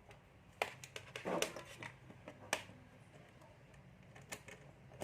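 Light clicks and taps from handling small electronic parts and clip leads, the sharpest about two and a half seconds in, over a faint low hum.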